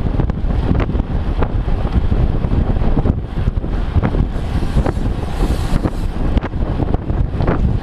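Heavy wind buffeting the microphone: a loud, steady low rumble broken by frequent crackles.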